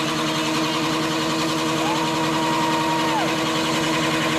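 Chevrolet S-10 pickup's engine held at steady high revs during a burnout, its rear tyre spinning on the pavement. A thin higher squeal comes in about two seconds in and drops away a second and a half later.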